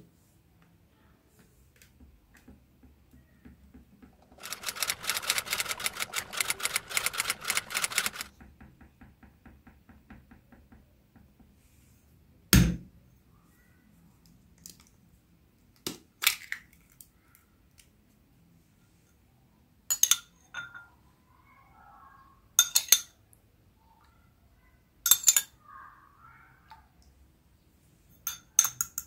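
Plastic packaging crinkling for about four seconds. Then a knock and the crack of an egg broken into a glass bowl, followed by three sharp clinks on the glass with soft pouring between them as milk is added.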